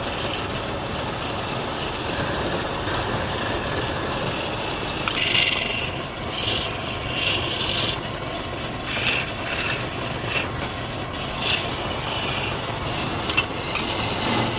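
Wood lathe running steadily, with short rasping strokes against the spinning wood, repeating irregularly from about five seconds in.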